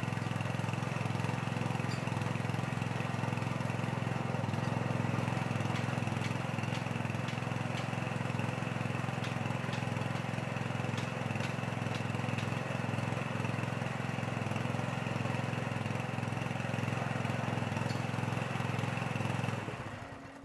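Small engine running steadily, then shutting off just before the end.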